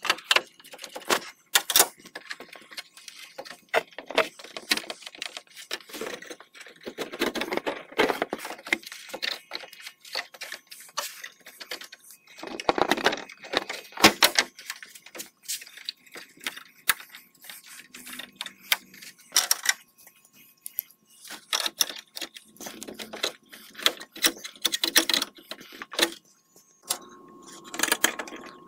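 A hand wrench clicking and clinking against the bolts and metal brackets behind a pickup's grille, with irregular knocks and rattles as the parts are handled.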